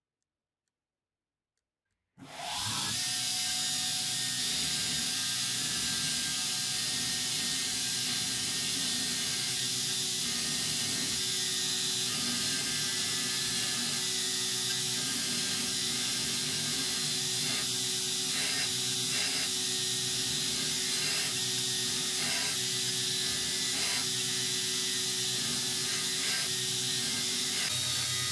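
Belt grinder running with a steel hammer head pressed against its sanding belt: a steady grinding rush over the motor's hum. It starts abruptly about two seconds in.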